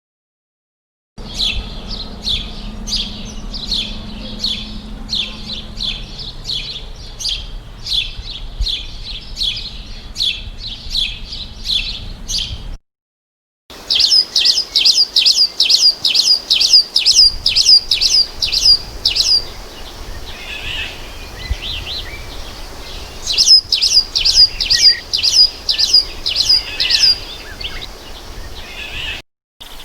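Recorded bird song: a long series of high, falling whistled notes repeated about twice a second, broken by a brief silence about halfway, then taken up again with a slightly faster series, softer chirps, and a last run of notes near the end.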